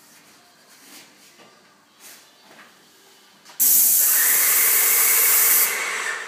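Paint spray gun spraying: a loud hiss starts suddenly about three and a half seconds in, lasts about two seconds, and trails off. Before it there are only a few faint clicks.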